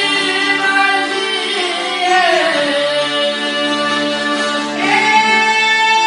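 Albanian folk song: a voice singing long held notes over a plucked string instrument. The line slides down about two seconds in and a new note swells in near the end.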